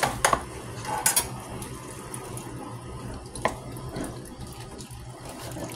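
A few sharp knocks of a knife chopping on a plastic cutting board, twice in the first second or so and once more later, over a steady hiss.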